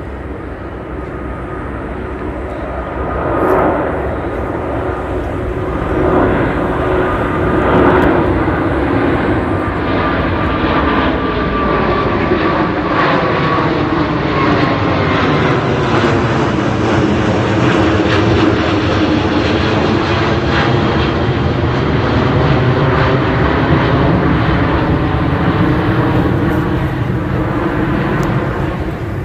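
Twin-engine widebody jet airliners climbing out after takeoff at full thrust, a loud steady jet roar overhead. An engine whine slowly falls in pitch as the aircraft passes.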